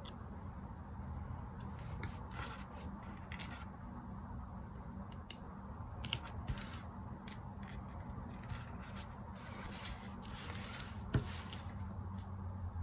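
Scattered clicks and scrapes of small plastic parts of a cheap LED night light being handled and pried apart with hand tools, with one sharper click near the end, over a steady low hum.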